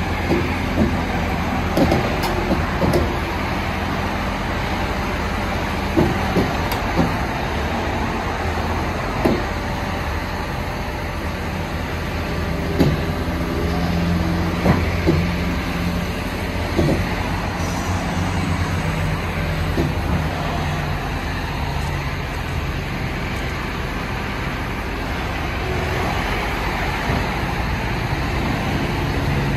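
Caterpillar 312E excavator's diesel engine running steadily under load as the machine crawls up steel loading ramps onto a truck trailer, with its steel track shoes clanking and knocking on the ramps every few seconds.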